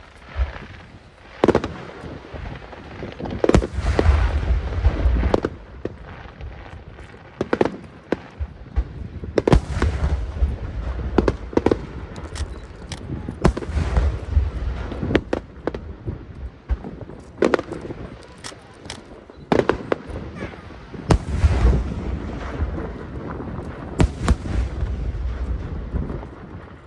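Large aerial fireworks shells bursting in volleys: many sharp cracks and bangs over stretches of deep, rumbling booms.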